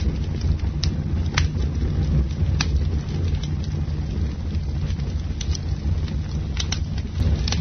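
Campfire burning: a steady low rush of flames with sharp crackles and pops scattered through it, a few of them close together near the end.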